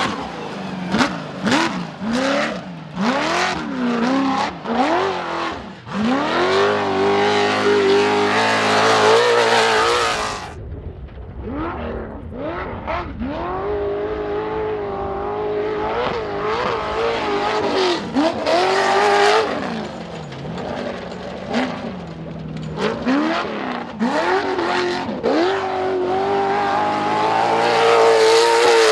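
Class 1 off-road race buggies' engines revving hard through dirt turns, the pitch climbing and dropping again and again as the throttle is lifted and reapplied, with longer runs held at high revs.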